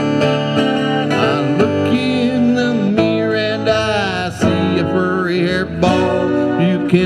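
Acoustic guitar played in an instrumental break of a folk song, with some wavering higher melodic notes over the chords.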